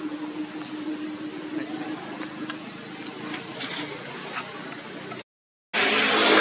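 Forest ambience dominated by a steady, high-pitched insect drone, with a low steady hum underneath and a few faint clicks. The sound cuts out completely for about half a second near the end, then comes back louder.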